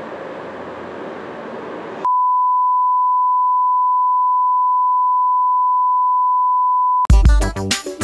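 Broadcast test tone, one steady pitch held for about five seconds over colour bars, signalling a technical interruption to the programme. Before it there is a steady hiss, and about seven seconds in, music starts.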